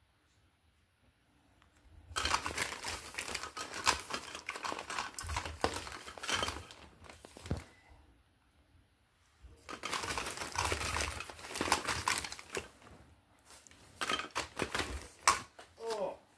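Plastic shopping bags crinkling and rustling as they are handled. The crinkling starts about two seconds in and comes in two long stretches with a short pause between, then a few shorter bursts near the end.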